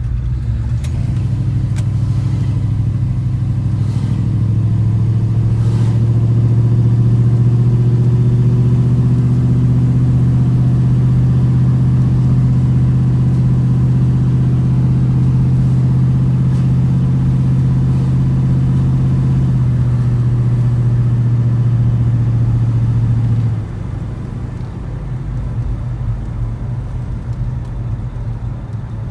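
Rebuilt 454 big-block V8 running. Its speed rises a second or two in, holds steady and even for about 20 seconds, then drops back to idle about 23 seconds in.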